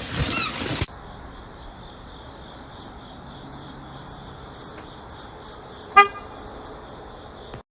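A loud, noisy stretch with chirps cuts off abruptly just under a second in, leaving a faint steady hiss with a high whine. About six seconds in comes one short, loud horn toot.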